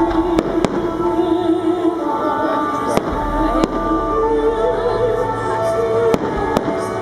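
Firework shells bursting with sharp bangs, about six of them in three close pairs roughly three seconds apart, over a music soundtrack accompanying the display.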